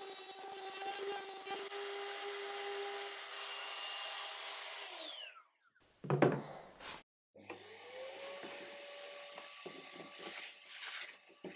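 Cordless trim router running steadily as it cuts a rebate in plywood, then spinning down about five seconds in. After a short knock, a shop vacuum starts up and runs, with small clicks and rattles as its hose sucks up wood chips near the end.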